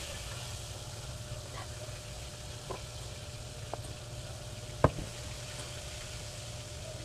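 A rice paddle scooping cooked rice out of a metal pot, with a few light clicks and knocks of the paddle against the pot, the sharpest about five seconds in. A steady hiss and low hum sit underneath.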